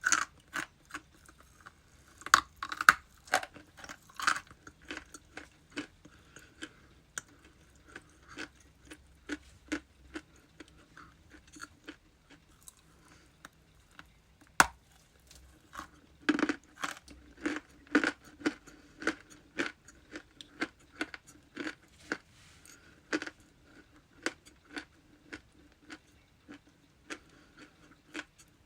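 Ice being bitten and chewed close to the microphone: sharp, irregular crunches about twice a second, with louder bites about two seconds in and again about halfway through.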